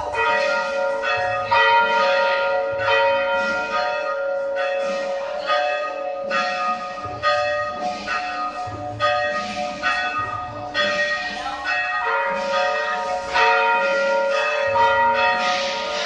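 Rope-rung church bells tolling the requiem knell for the dead: a strike about every two-thirds of a second, each ringing on and overlapping the next.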